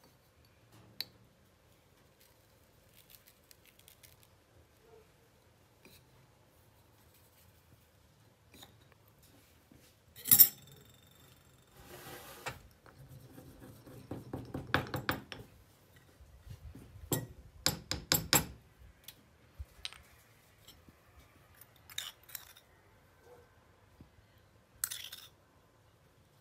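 Scattered clinks, taps and knocks of a spoon, spice containers and a bowl handled on a metal tray. There is one sharp ringing clink about ten seconds in, and a busier stretch of clattering a few seconds later.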